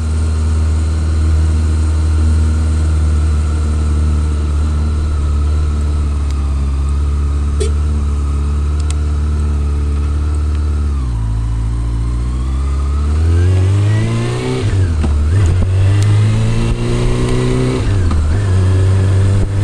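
Honda CB400 Super Four's inline-four engine under way, running at a steady pitch. About eleven seconds in the note drops, then climbs as the bike accelerates, with several quick dips and rises near the end.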